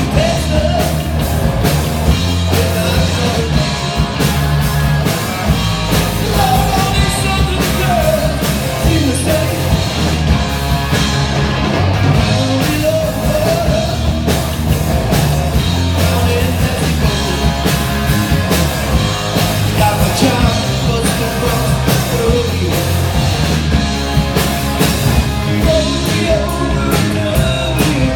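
Rock-style band music with drums, bass and guitar, playing an instrumental passage with a wavering lead melody over a steady beat.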